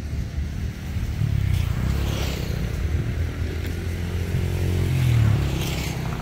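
Engine of a passing motor vehicle, a low hum that grows louder to a peak about five seconds in, then begins to fade.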